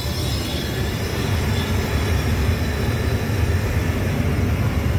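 Steady low rumble of an Airbus A320 in flight, the drone of engines and airflow heard inside the aircraft's lavatory.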